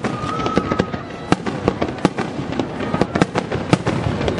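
Aerial fireworks shells bursting in rapid, irregular succession, several bangs a second, recorded live as heard from the crowd.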